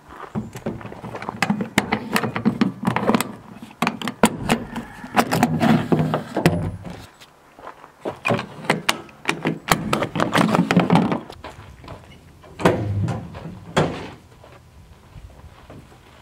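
Ratchet tie-down straps being cranked tight over a load of lumber on a pickup truck's roof rack. The sound is a long run of sharp clicks and knocks that comes in several bouts.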